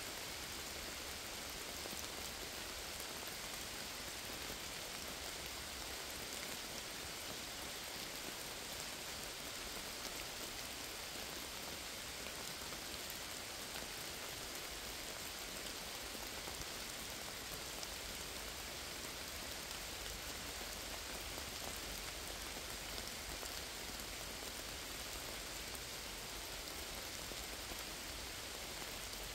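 Steady rain falling on forest foliage: an even hiss of many drops that does not let up.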